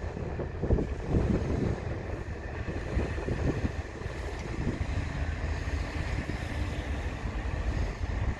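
Steady low drone of a Wightlink FastCat passenger catamaran's engines passing close, with a few faint steady tones over it. Cold wind buffets the microphone in gusts, mostly in the first half.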